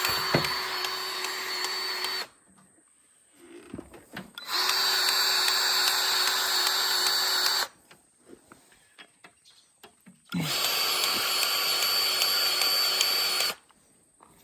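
Battery-powered grease gun running in three steady whirring runs of about three seconds each, pumping grease into the skid steer's grease fittings. The first run is already going and stops about two seconds in, the next two follow after short pauses.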